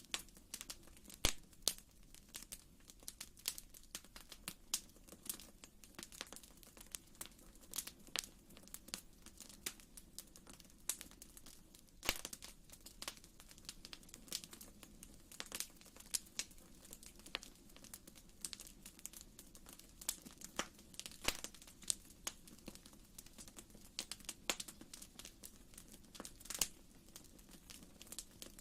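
Wood fire crackling in a fireplace: irregular sharp pops and snaps, several a second, over a soft steady low rush of the flames.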